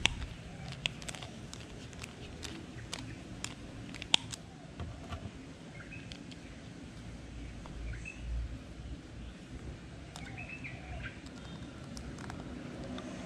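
Light clicks and taps of a small screwdriver and metal reel parts as screws are fitted into a Shimano Sienna spinning reel, thickest in the first few seconds. Faint bird chirps come in a few times in the background.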